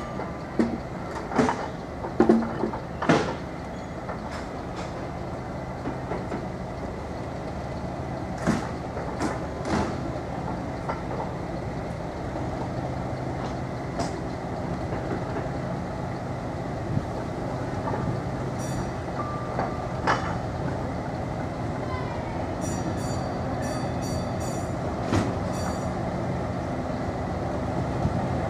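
Diesel locomotive's engine running steadily as it creeps along at low speed. Its wheels give sharp clacks over rail joints and points, several in the first three seconds and then a few more spread out.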